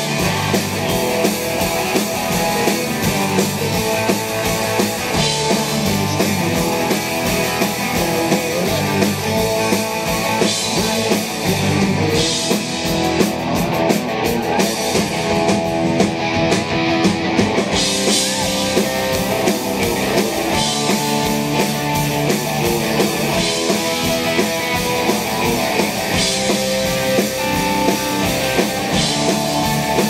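Rock band playing live: electric guitars, bass and a drum kit driving a steady rock beat.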